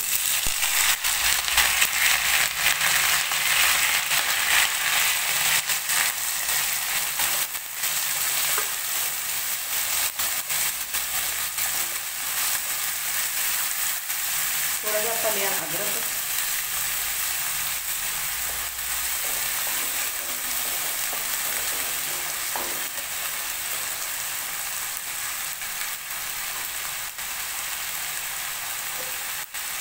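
Chopped onions dropped into hot mustard oil in a kadhai, frying with a sizzle that bursts up as they go in and settles to a steady sizzle after a few seconds. A wooden spatula stirs and scrapes them in the pan.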